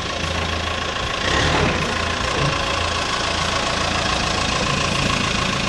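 An engine idling steadily, a continuous low hum with a faint, even high tone over it.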